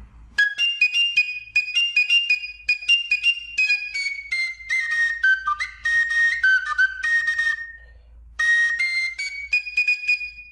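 Carrizo cane flute playing a tune of quick, separately tongued high notes that step downward, then, after a short break, climb in a brief rising phrase.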